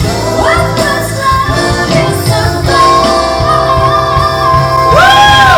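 A pop-gospel ballad playing: a female singer holding long notes over band accompaniment, with a note that swoops up and back down near the end.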